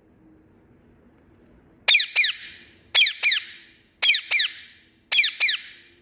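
A parrot giving loud chirps in four quick pairs, about a second apart, starting about two seconds in; each note drops sharply in pitch.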